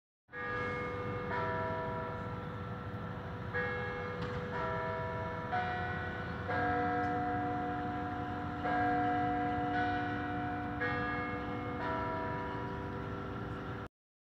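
Peace Tower carillon bells playing a slow tune, each struck note ringing on under the next, over a low background rumble. The sound cuts off abruptly near the end.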